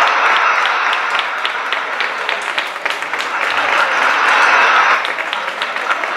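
Audience applauding: a dense, steady wash of hand-clapping with individual claps standing out.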